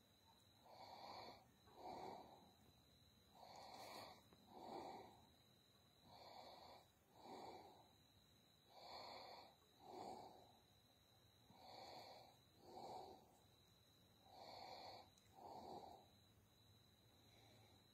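Faint, slow, regular breathing close to the microphone: six breaths, each an inhale followed by an exhale, one about every two and a half to three seconds.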